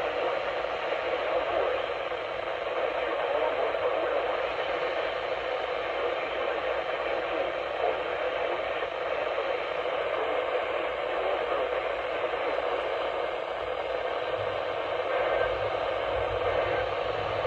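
Steady radio static: an even hiss from a receiver's speaker, with no voice or alert tones.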